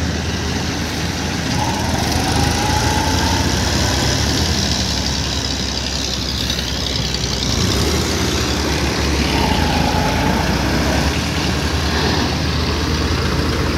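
New Holland 3630 tractor's three-cylinder diesel engine running steadily under load, a continuous low drone as it hauls a loaded trolley through soft, waterlogged paddy-field mud.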